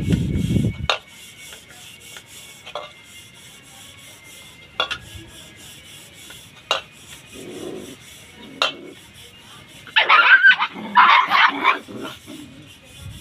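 Puppies yelping and squealing for about two seconds near the end. A brief low rumble at the start and a few sharp clicks come before it.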